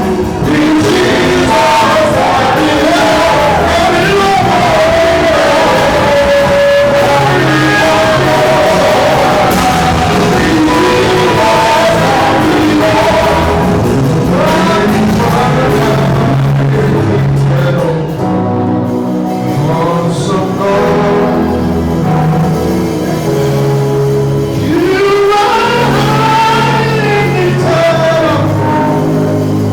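Live worship music: singing over a full band with steady bass, in a large hall.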